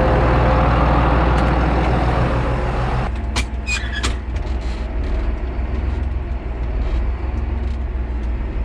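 Tractor engine running steadily, somewhat louder for the first three seconds, with a few short clicks and squeaks about three and a half seconds in.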